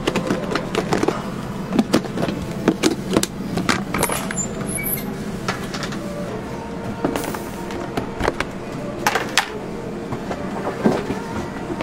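Food-preparation clatter: irregular knocks and clicks of plastic containers and utensils being handled, over a steady background hum.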